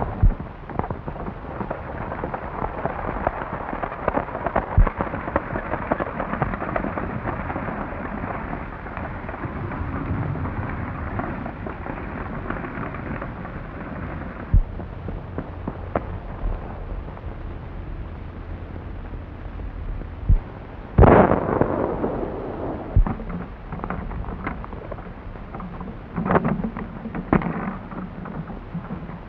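Horse-drawn stagecoach pulling away, a dense clatter of hooves and wheels on an old, crackly film soundtrack, which drops off about halfway through. Later a few sharp bangs, the loudest about two-thirds of the way in and a quicker cluster near the end.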